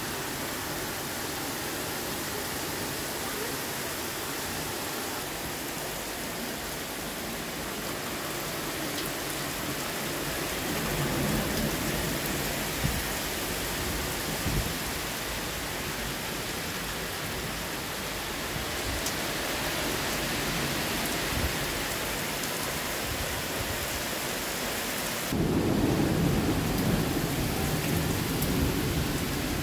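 Heavy thunderstorm rain pouring steadily, with thunder rumbling. Near the end the sound turns suddenly louder and deeper.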